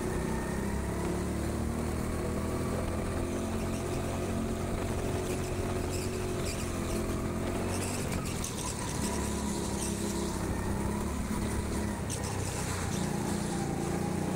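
Go-kart running flat out on an indoor track, heard from the driver's seat: a steady engine note with tyre and track noise, easing briefly a little past halfway and then picking up again.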